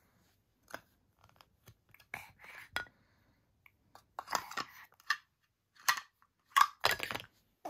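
Hard toy pieces being handled, clicking and clattering in irregular short knocks that grow louder and more frequent in the second half.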